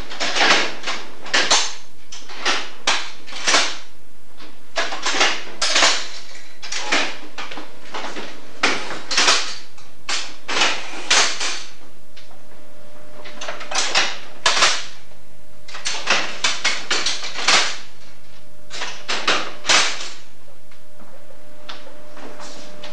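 Levers of a mechanical signal box lever frame being worked: a long, irregular run of sharp metallic clacks and clunks, often in pairs, as levers are thrown and their catches drop into place. This is a route being set: points and a lock bar reversed and signals cleared for a light engine.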